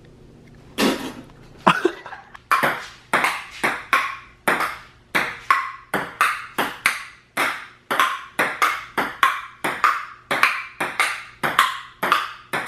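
Table tennis rally: the celluloid ball clicking back and forth off the paddles and the table, about two to three hits a second, starting about a second in.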